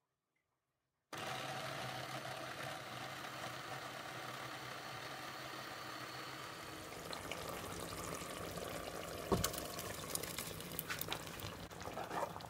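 Electric food processor motor starts abruptly about a second in and runs steadily with a low hum, chopping green bell peppers. About seven seconds in the hum gives way to the blended peppers sizzling in hot oil, with a few sharp knocks of the spatula against the pot near the end.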